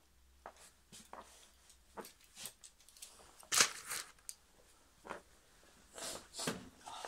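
A single loud cough a little past halfway, amid faint rustling and small clicks, with a weaker burst near the end.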